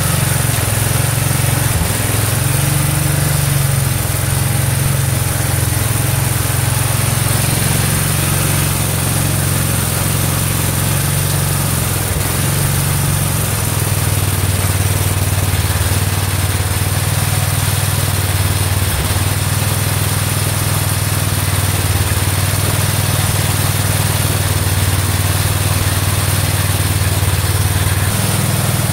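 Garden tractor engine running steadily; its note drops a little about halfway through.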